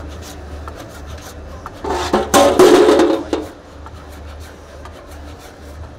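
Automatic sheet-fed digital cutter cutting a sheet of printed stickers, its cutting head travelling over the sheet. A rasping mechanical buzz, loudest from about two to three and a half seconds in, sits over a steady low hum.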